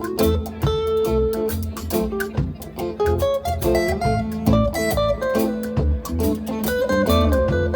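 Live band playing an instrumental passage with no singing: plucked guitar notes over bass and drums.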